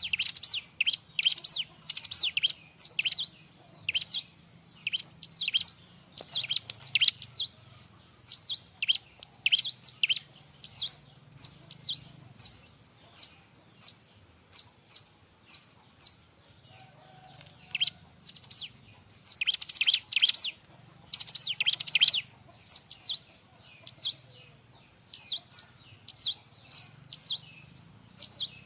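Bar-winged prinia (ciblek) singing a busy, sharp song: a string of short, high, down-slurred chirps about two a second, breaking into rapid clusters of notes a few times.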